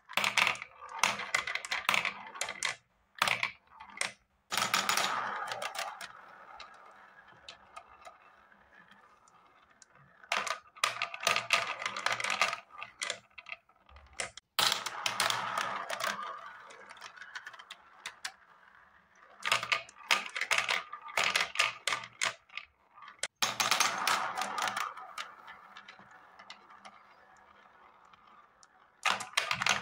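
A handful of plastic balls clattering onto a plastic spiral-funnel marble run in quick bursts of clicks, then rolling round the funnel with a fading sound as they drop through the centre hole. This repeats about seven times.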